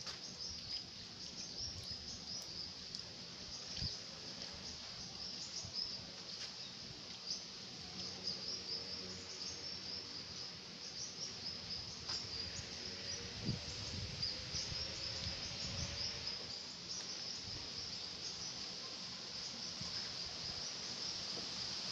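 Insects chirping steadily in a continuous high, rapidly pulsing chorus, with water being poured from a small pot onto bonsai pots.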